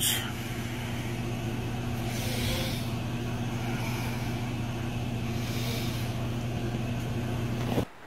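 Domestic cat purring steadily as a low, even rumble. It cuts off abruptly near the end.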